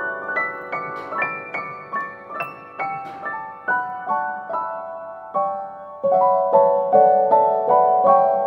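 Background piano or electric piano music: a gentle melody of single notes, about two or three a second, growing louder about six seconds in.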